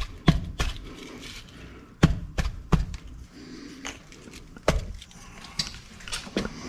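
Scattered sharp clicks and knocks, about ten in all, from tools and plumbing parts being handled while fitting PEX pipe.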